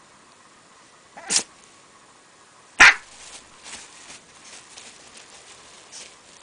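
A dog sneezing: a short sneeze about a second in, then a louder, sharper sneeze, followed by a string of fainter short puffs.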